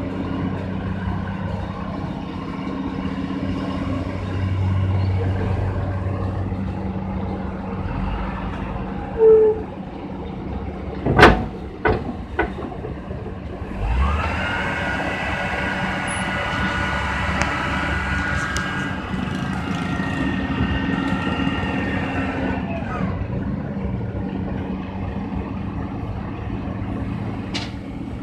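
Komatsu PC200-8 crawler excavator's diesel engine running steadily as the machine drives up onto a self-loader truck's deck, with a few loud sharp knocks about nine to twelve seconds in. A high steady whine sounds through the middle, for about nine seconds.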